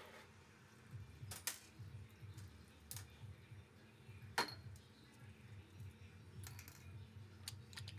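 Handling noise: a few scattered sharp clicks and taps, the loudest about four and a half seconds in, over a faint low hum.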